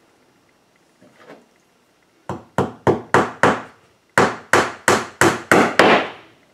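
Hammer driving a small nail into the wooden panel of a birdhouse kit: a run of five quick taps, a short pause, then six more, about three a second.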